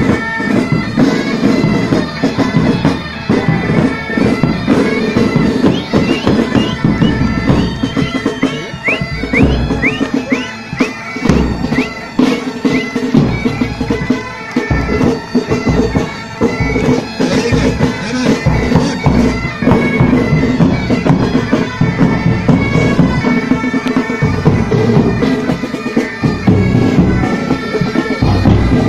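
A pipe band playing: bagpipes sounding a tune over their steady drone, with marching drums beating in time.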